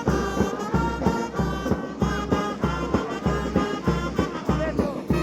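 Lively band music with brass carrying the tune over a steady, driving drum beat.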